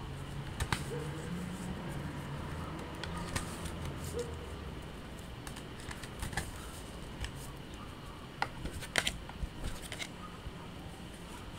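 A deck of oracle cards being shuffled and handled: scattered soft flicks and clicks, with a quick run of them about nine seconds in.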